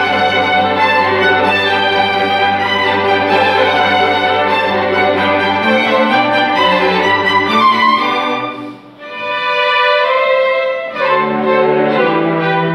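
String ensemble of violins, cellos and double bass playing a piece. Near nine seconds in the sound thins to a brief dip and a single melody line, then the full ensemble comes back in about two seconds later.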